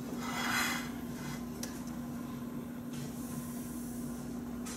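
Steady low electrical hum, with a brief rubbing noise about half a second in and a few faint clicks after it.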